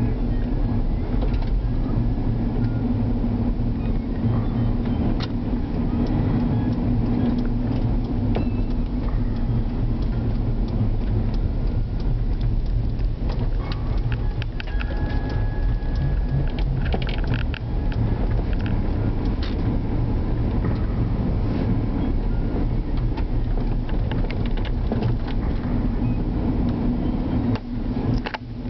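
Steady engine hum and tyre rumble heard from inside a moving car on a snow-packed road, with scattered small clicks and rattles.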